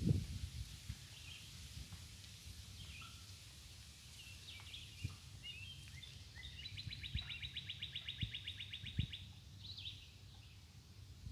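Songbirds chirping, with one bird giving a rapid, even trill of about a dozen notes a second that lasts about two and a half seconds, starting a little past halfway. Occasional low thumps and rumble run underneath.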